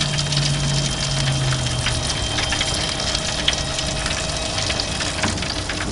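Propane gas grill burners running under a turning rotisserie, with melted butter and turkey drippings sizzling and crackling as the butter is brushed on: a steady rushing hiss with scattered sharp crackles.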